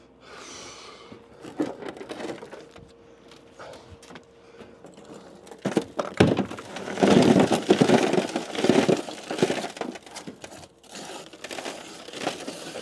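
Rock and dirt rubble crunching and clattering as it is broken up and dug out of a car's body, loudest from about six to nine seconds in.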